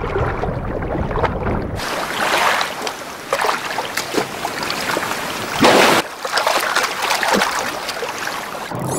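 Sea water sloshing and splashing at the surface, with wind on the microphone; muffled and low for the first two seconds, then brighter, with a louder surge of splashing about six seconds in.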